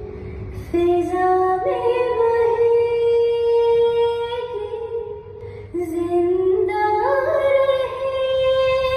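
Background music: a woman's voice singing long, held notes in a slow melody, in two phrases, the second beginning about six seconds in.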